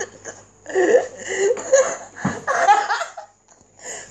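Laughter in repeated bursts, with a short dull bump about two seconds in.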